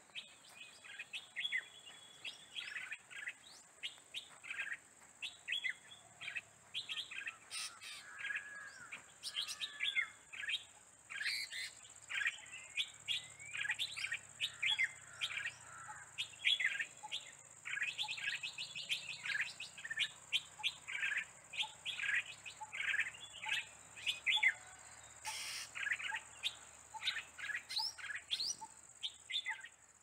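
Many birds chirping in a dense chorus of quick, overlapping short calls, with a steady high-pitched whine underneath.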